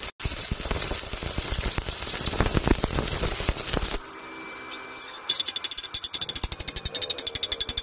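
Stick arc welding on steel plate: the arc crackles and sizzles unevenly for about four seconds, then stops. After a short quieter gap, a fast, even run of sharp clicks, about ten a second, follows as a tool knocks slag off the fresh weld bead.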